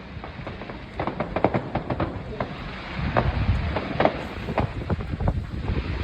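Fireworks exploding: a rapid string of sharp bangs and crackles that starts about a second in, over a low rumble.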